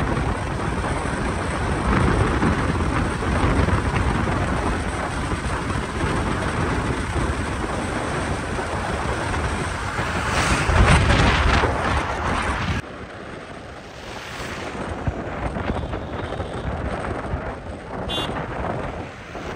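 Wind buffeting the microphone over a low rumble, dropping abruptly to a quieter rumble about 13 seconds in.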